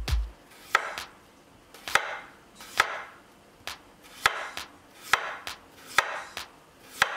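Chef's knife slicing through a raw potato on a wooden cutting board, about ten slow cuts under a second apart, each ending in a sharp tap of the blade on the board.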